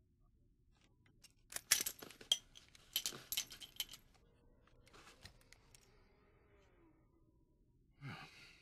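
Metallic clicks and clinks of brass revolver cartridges being handled and counted out of the gun, in a quick cluster between about one and a half and four seconds in, then a few more near five seconds. A short breathy sound follows near the end.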